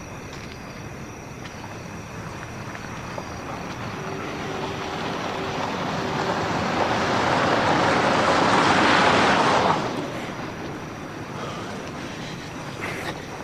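A car approaching, its engine and tyre noise growing steadily louder over several seconds, then cutting off abruptly.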